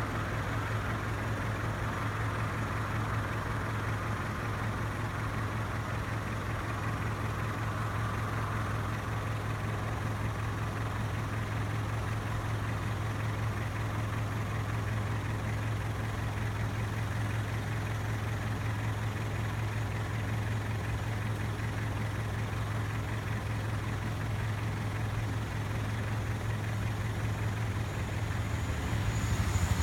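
A vehicle engine idling steadily, a low even hum with no siren, growing louder near the end.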